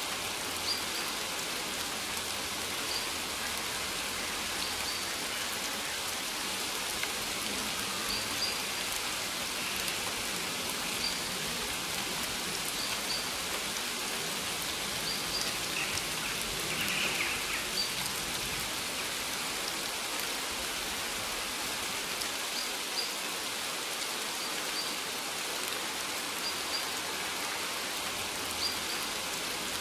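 Steady rain falling on maize plants, an even patter, with a faint short high chirp recurring every second or two.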